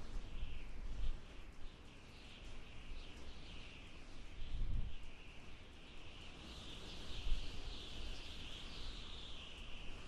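Strong wind howling in gusts, with low rumbling buffets that swell and fade and a high, wavering hiss that rises and falls in pitch.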